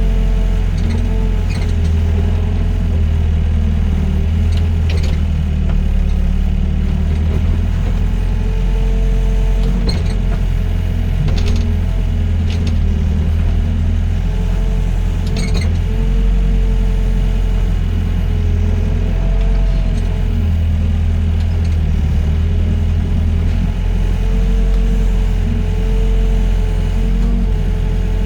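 Doosan DX55 mini excavator's diesel engine working under load, a steady low drone with a tone that rises and falls as the hydraulics take up load, and a few sharp knocks here and there.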